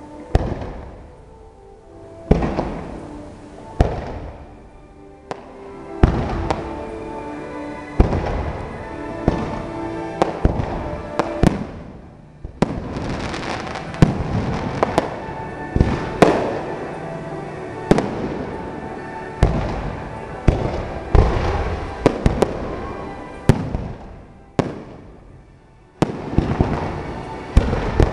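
Aerial firework shells bursting in a display: sharp reports every second or two at first, then coming thick and fast, each followed by crackle and echo. There is a short lull near the end before more bursts.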